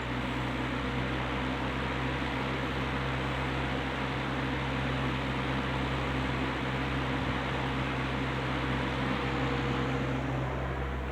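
Wizard box fan running steadily in a window, its motor newly rebuilt with replacement bearings: an even rush of air over a low motor hum.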